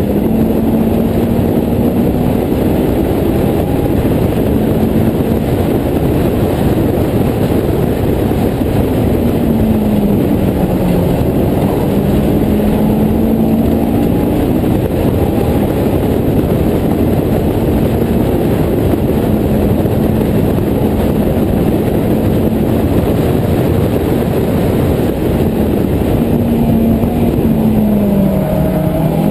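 Honda S2000 four-cylinder engine of a Westfield clubman race car at race pace, heard onboard under a heavy rush of wind and road noise from the open cockpit. The engine note drops about ten seconds in and climbs again near the end.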